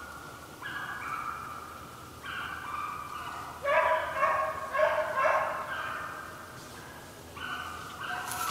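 A pack of deer-hunting hounds baying, several dogs calling at once in drawn-out bays, with a run of louder, shorter barks about halfway through.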